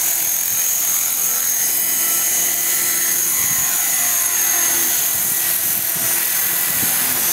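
KDS 450SV electric RC helicopter in flight: a steady high-pitched whine from its motor and rotor, with the pitch sliding up and down as it manoeuvres.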